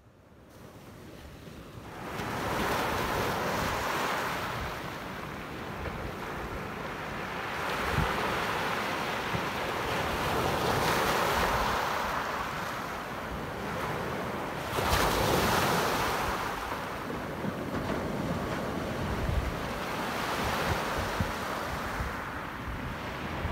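Small waves breaking and washing up a gravel beach, the surf swelling and falling back every four to five seconds. It fades in over the first couple of seconds.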